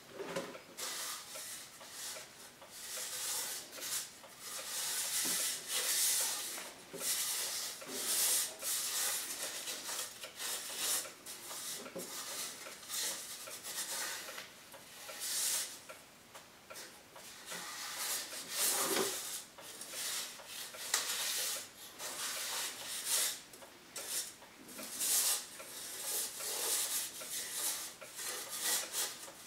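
Irregular scraping and rubbing strokes, roughly one or two a second, as a hand works inside a black metal stove pipe set in a brick wall.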